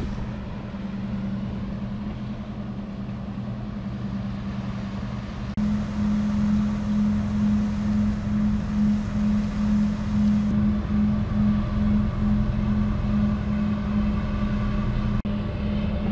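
Towboat's diesel engines droning steadily as it pushes a loaded barge along the river, a low hum that gets louder about five and a half seconds in and then throbs slowly.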